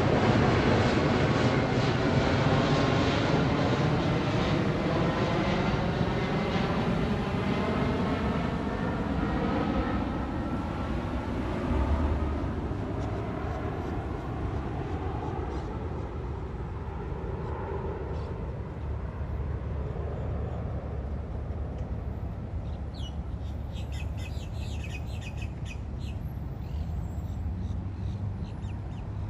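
Jet airliner engine noise, loudest at the start and fading away over about fifteen seconds as the plane passes and moves off on its approach to land. Steady low traffic hum underneath, with a bird chirping in short bursts near the end.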